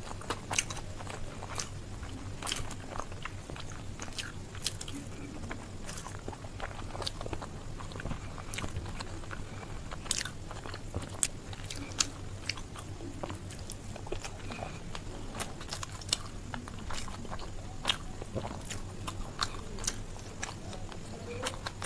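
Close-miked eating sounds of a person chewing soft mashed rice and bharta eaten by hand: wet chewing with frequent sharp mouth clicks and smacks at irregular intervals.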